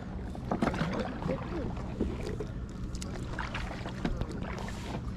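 Kayak being paddled: the double-bladed paddle dipping and splashing in the lake water, with scattered light knocks, over a steady low wind rumble on the microphone.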